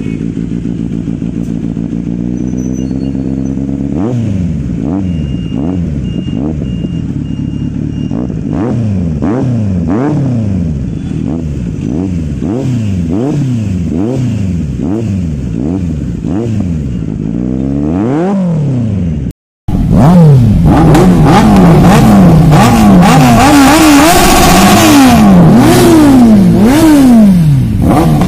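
Kawasaki Z900 inline-four through an Akrapovic slip-on muffler, idling and then revved in quick repeated throttle blips from about four seconds in, the engine note climbing and falling roughly once a second. After a brief dropout about two-thirds of the way through, louder and harsher revving of motorcycle engines, the rises and falls overlapping.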